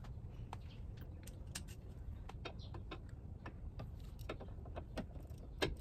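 Ratchet wrench clicking in short, irregular strokes as a front control arm bolt is worked loose, with a sharper click near the end, over a low steady rumble.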